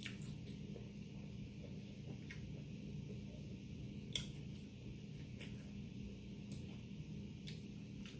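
A person chewing a mouthful of taco, with a few short sharp mouth clicks scattered through, over a steady low hum.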